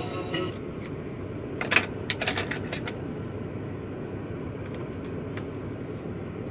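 A quick cluster of sharp plastic clicks and rattles about two seconds in as a USB stick is pulled from the dashboard USB port and handled, with a few faint ticks later, over a steady low cabin hum. Music from the car stereo cuts off just at the start.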